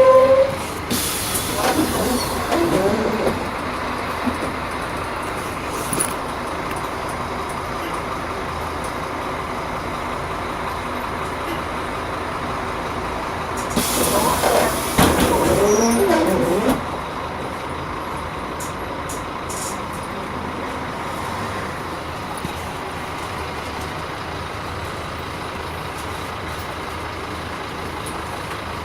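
Scania K310 city bus running steadily, with two short hisses of compressed air, about a second in and again about 14 seconds in, each followed by a couple of seconds of wavering squeal.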